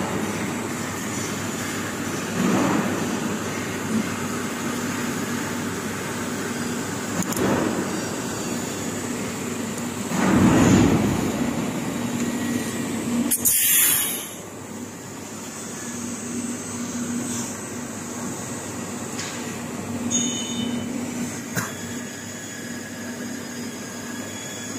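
Automatic TIG welding machine and its equipment running: a steady low hum with a faint high whine, and two louder rushing noises about halfway through.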